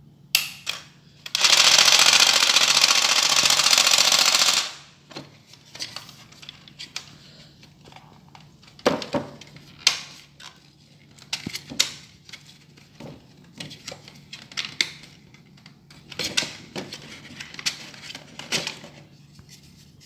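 Battery-powered toy jigsaw running: two short bursts, then a loud steady buzz for about three seconds that cuts off suddenly. After it come scattered plastic clicks and knocks.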